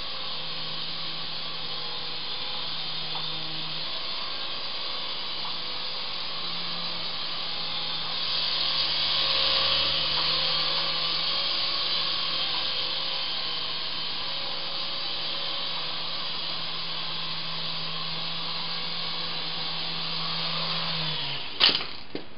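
Syma S109 mini Apache R/C helicopter's small electric motors and rotors whirring steadily in flight, a little louder for a few seconds around the middle. The whir cuts off near the end with a sharp click.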